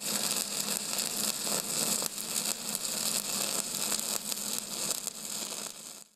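Loud, steady crackling hiss like static, starting abruptly and cutting off near the end.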